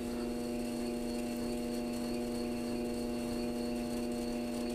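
Electric pottery wheel's motor running at slow speed with a steady, even hum while a clay cup is cut free at its base.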